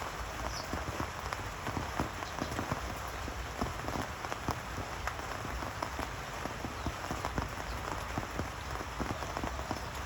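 Steady rain falling, with many separate drops hitting a surface close by.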